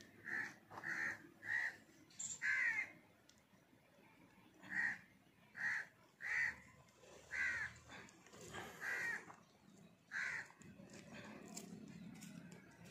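A crow cawing repeatedly: about ten short caws, spaced unevenly, with short pauses between runs.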